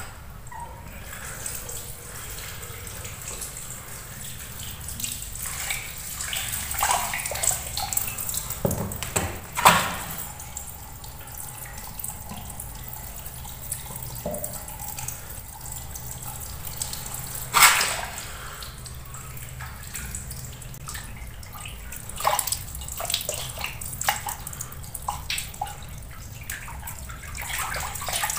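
Water running from a tap and splashing onto a plate of raw chicken pieces as they are rinsed by hand, with frequent small splashes and knocks. Two sharp knocks stand out, about ten and eighteen seconds in.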